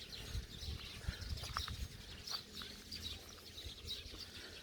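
Sparrows chirping, many short scattered chirps over a faint low rumble.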